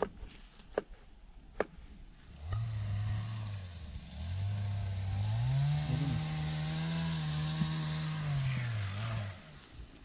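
An engine runs for about seven seconds, starting suddenly; its pitch climbs about halfway through, holds, then drops away before it stops. Three sharp clicks come before it.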